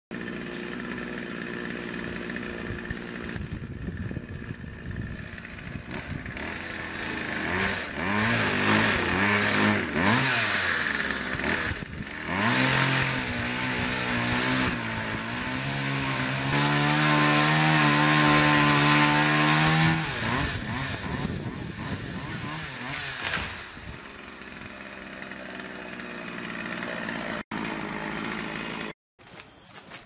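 Chainsaw engine running steadily at first and revving a few times, then held at high revs for about eight seconds while cutting into the trunk of a young African mahogany. It then drops back to a lower, quieter run and cuts off abruptly near the end.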